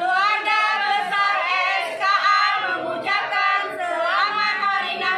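A group of children and adults singing together unaccompanied, many voices at once in long, sliding notes.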